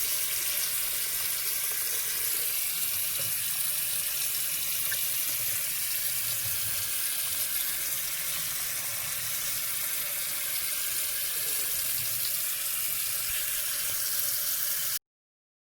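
River water rushing steadily over rocks, an even hiss that cuts off abruptly near the end.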